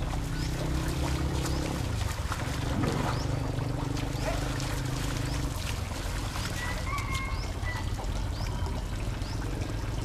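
Water splashing and trickling as an elephant is scrubbed down in a river, over a low steady drone, with short high chirps repeating throughout.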